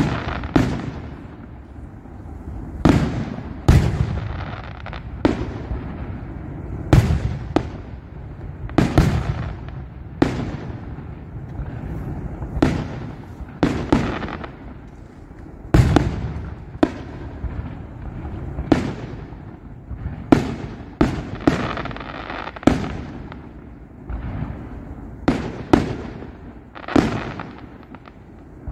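Fireworks display: about twenty aerial shell bursts at irregular intervals, roughly one every second or two. Each is a sharp boom with a long echoing tail.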